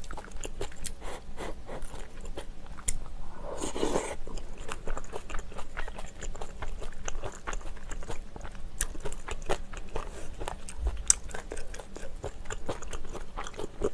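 Close-miked chewing of a mouthful of tuna kimchi stew with rice and kimchi: many small wet mouth clicks and light crunching, going on steadily. A short, fuller mouth sound comes about four seconds in.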